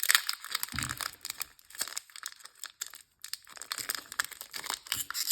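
Crinkly foil wrapper of a Pokémon card booster pack being torn open and crumpled by hand: a dense, irregular run of crackles, with a couple of soft thumps.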